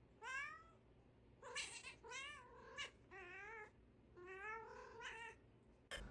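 Domestic cat meowing repeatedly: a series of about six drawn-out calls whose pitch wavers up and down.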